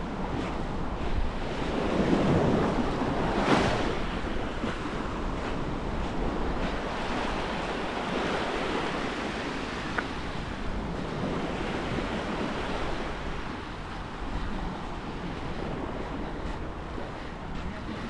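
Sea surf breaking and washing up the beach in slow surges, with one louder wave about two seconds in. Wind rumbles on the microphone throughout.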